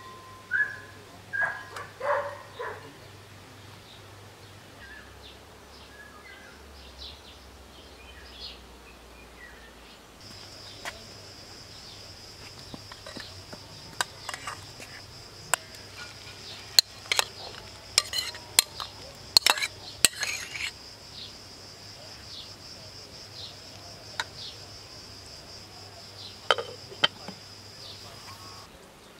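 Food frying in hot oil in a pot: a steady high sizzle with scattered sharp pops and metal clinks, busiest in the middle, and a clank near the end as a glass lid goes on the pot.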